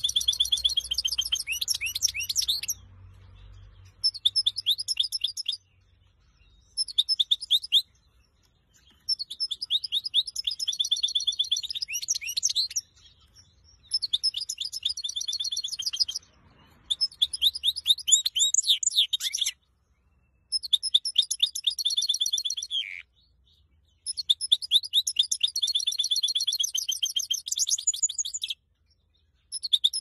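Goldfinch × canary hybrid (a goldfinch mule) singing: rapid, high trilled phrases a few seconds long, broken by short pauses.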